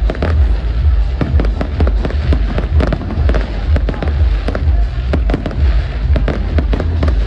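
Aerial fireworks display: a rapid barrage of shell bursts, bangs and crackling over a constant deep rumble.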